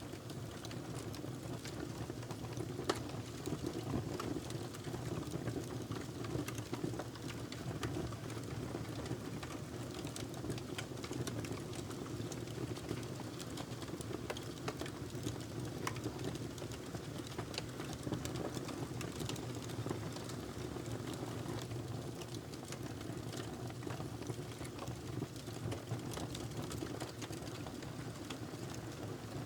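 Wood fire burning in a fireplace: a steady low rush of flame with frequent small crackles and pops scattered throughout.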